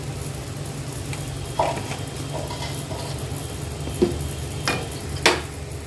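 Wooden spatula stirring soup in an iron kadhai, knocking sharply against the pan a few times, over a steady low hum.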